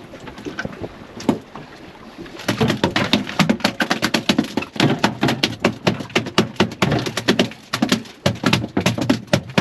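A freshly landed blackfin tuna beating its tail against the boat deck: a rapid, irregular drumming of hard thumps, several a second, starting about two and a half seconds in after a few scattered knocks.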